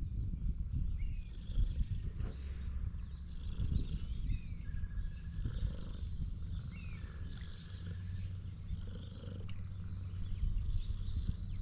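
Domestic cat purring, a low uneven rumble close to the microphone, with faint bird chirps above it.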